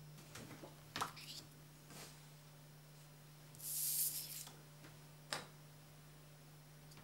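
Paper pictures and cards handled on a wooden tabletop: a few light taps and rustles, and about four seconds in a longer swish of paper sliding across the wood.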